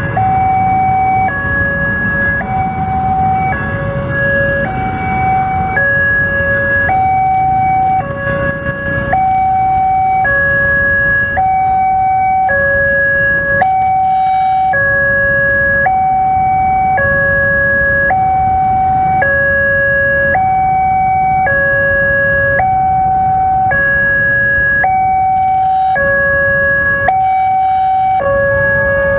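Railway level-crossing warning alarm sounding while the barriers are down for an approaching train: an electronic two-tone signal alternating steadily between a higher and a lower note, each held for under a second. The low rumble of waiting motorcycle and car traffic runs underneath.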